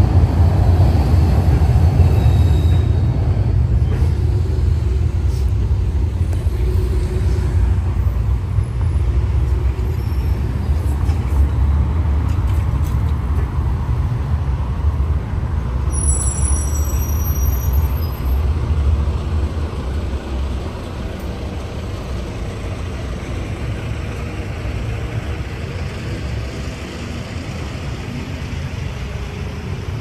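Outdoor city background noise: a low, steady rumble that is heavy for about twenty seconds and then eases.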